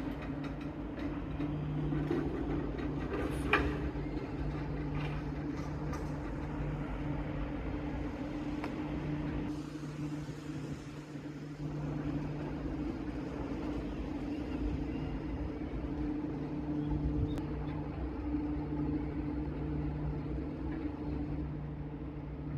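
Skyrail suspended car, a hybrid of suspended monorail and ropeway, running along its elevated track. It makes a steady mechanical hum over a low rumble, with a single sharp click about three and a half seconds in.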